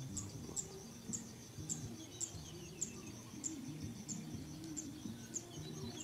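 Field ambience of insects chirping: a short high chirp repeating about twice a second over a steady high-pitched ring, with faint low tones underneath.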